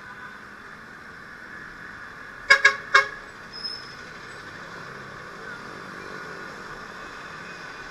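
Three short, loud beeps of a vehicle horn, close together, over steady street-traffic noise.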